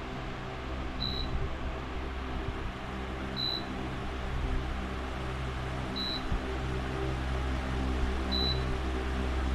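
Pelonis 16-inch pedestal fan running steadily: an even rush of air over a low motor hum. A short, high beep sounds four times, evenly spaced about two and a half seconds apart.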